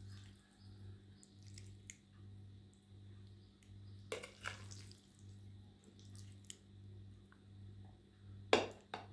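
A few short handling noises, brushing and clicking: a cluster about four seconds in and a louder pair near the end. Beneath them runs a faint low hum that pulses about once every 0.7 seconds.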